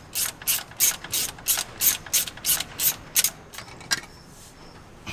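Ratchet wrench being cranked in quick strokes, about three a second, stopping about four seconds in: the nuts holding the Holley carburetor to the truck's intake are being run off.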